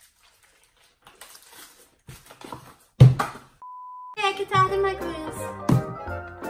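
Edited-in glitch effect: a sudden burst of static about three seconds in, then a steady single-pitch test-tone beep for about half a second, the tone that goes with TV colour bars. Background music follows.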